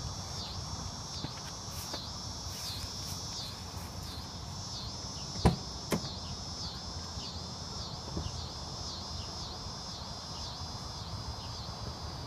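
Insects chirping in a steady pulsing rhythm, about two pulses a second. Two sharp knocks half a second apart near the middle.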